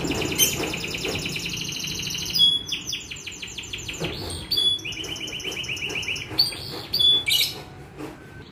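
Young domestic canary singing continuously: fast rolling trills that change to a new phrase every second or two, broken by a few sharp, loud single notes.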